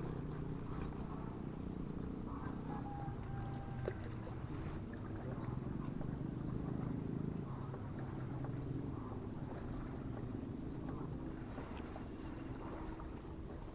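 Steady low hum of a motorboat engine running at a distance on the lake, with faint high chirps over it.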